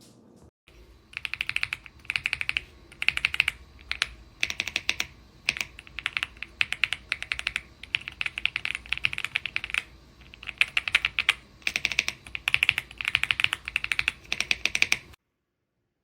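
Typing on the AULA F75 Pro mechanical keyboard with its pre-lubed Reaper switches and PBT keycaps: fast bursts of key clicks that stop suddenly near the end.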